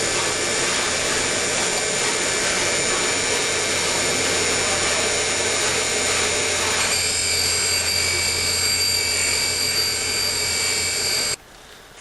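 Valve refacing machine running steadily, its motor humming and the stone grinding a valve face. Its sound shifts about seven seconds in, and it cuts off sharply near the end.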